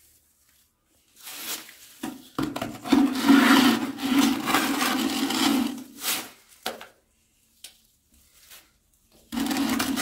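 Trowel scraping cement-based tile adhesive out of a plastic bucket and spreading it across the back of a wall tile. One long scraping stretch of a few seconds comes first, then a few short scrapes, and another scrape begins near the end.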